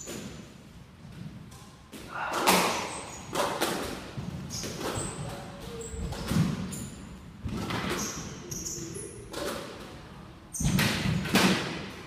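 Squash rally: the ball smacked by racquets and striking the court walls, about eight sharp hits starting about two seconds in, roughly one every second or so, each ringing briefly in the enclosed court.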